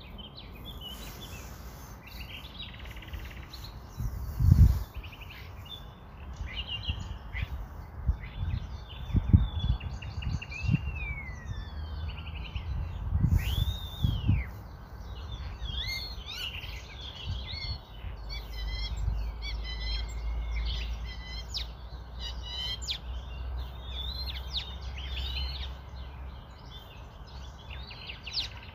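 Several birds chirping and singing throughout, many short calls and gliding whistles. A few dull low thumps come about four, nine and thirteen seconds in, and a low hum runs through the second half.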